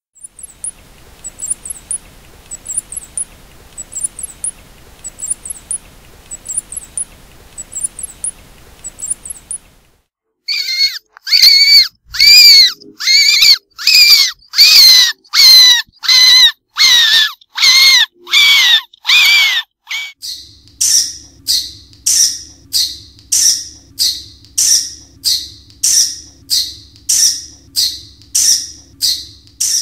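Mouse squeaks in three runs. First come faint, very high chirps in small clusters about once a second. From about ten seconds in, loud squeaks repeat roughly one and a half times a second. From about twenty seconds, shorter, higher squeaks come about twice a second over a low steady hum.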